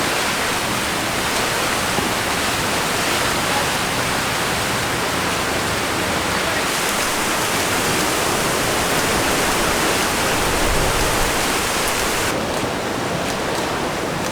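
Rain coming down in a steady, even rush of noise as a thunderstorm's rain arrives.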